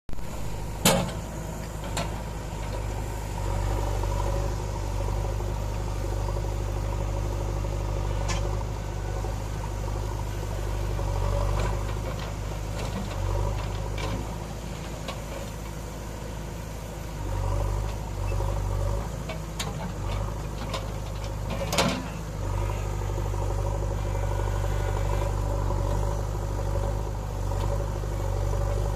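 JCB 3DX backhoe loader's diesel engine running steadily, with a few sharp metallic clanks from the work, the loudest about a second in and again about 22 seconds in.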